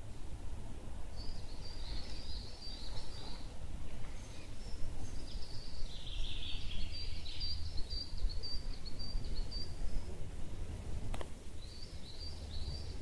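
Small songbirds singing in woodland, in three high chirping phrases, over a steady low rumble of wind or handling noise on the camera's microphone. A single sharp click comes near the end.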